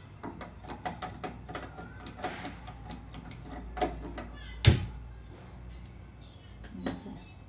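A hand-held spark gas lighter clicking over and over at an LPG stove burner, then the burner catching with one loud sharp pop about four and a half seconds in. A few softer clicks follow near the end.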